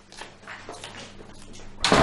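Faint shuffling, then a room door slammed shut near the end: one loud bang that dies away quickly.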